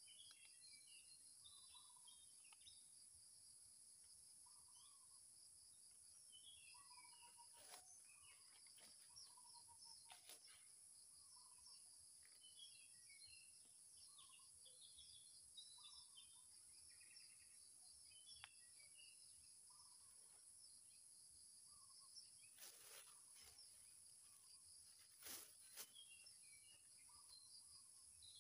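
Faint outdoor ambience: a steady high-pitched insect hum with many short, repeated bird chirps. A few brief rustles and snaps come from hands working in the leaf litter, the loudest near the end.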